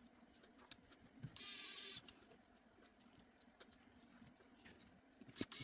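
Faint clicks and taps of small tools and parts on a smartphone, with one short motor whir about a second and a half in, like a small electric screwdriver driving one of the phone's tiny screws.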